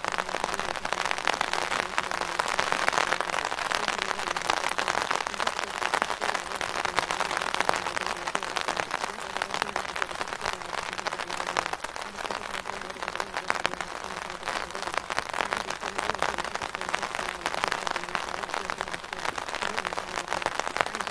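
Steady rain falling on a surface: a dense, even patter of drops with no breaks.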